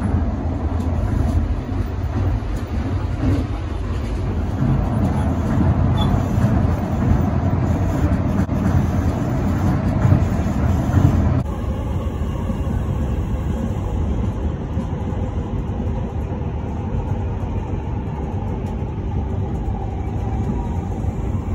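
Tokyo Monorail car running along its elevated concrete beam, heard from inside the cabin as a steady low rumble of running noise. The sound changes abruptly about halfway through.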